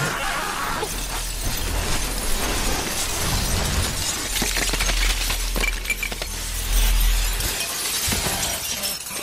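Glass shattering and debris crashing down over a deep low rumble, with many sharp cracks, loudest about seven seconds in and dying away at the very end.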